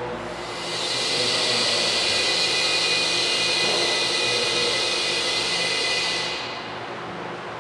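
Steady loud hiss of rushing compressed air from the pneumatic debris cannon, with a faint whine in it. It swells about half a second in and dies away about six seconds in, with no impact heard.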